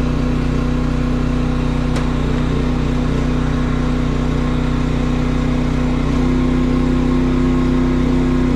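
Maxpeedingrods MXR4000 inverter generator's engine running steadily under about 1,350 W of load, with eco mode off. Its note rises slightly about six seconds in.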